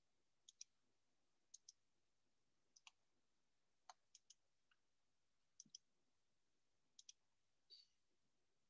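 Faint clicks of a computer mouse, mostly in pairs a split second apart, repeating about once a second, with one softer, longer click near the end.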